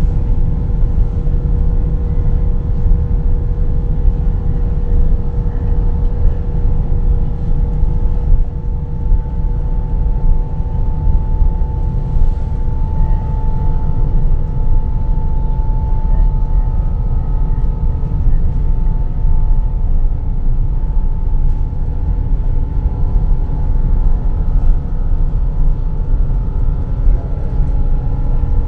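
Jet airliner cabin noise in flight: a steady, loud, low rush of engines and airflow, with a couple of faint steady hums above it.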